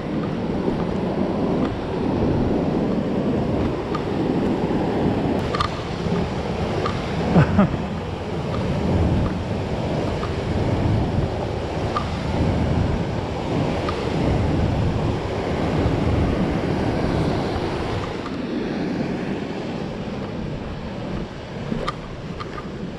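River water rushing steadily, with wind buffeting the microphone. A couple of short knocks come about five and seven seconds in.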